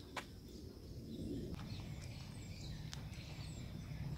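Outdoor ambience: a low steady rumble with a few faint, short, high bird chirps, and a single click or footstep near the start.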